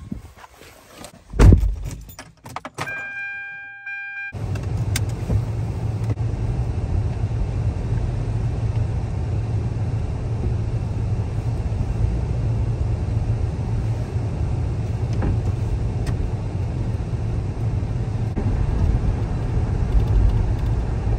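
Keys and handling clicks and a car door shutting with a thud, then a short steady electronic warning chime from the car. From about four seconds in, the steady low rumble of the car driving, heard inside the cabin.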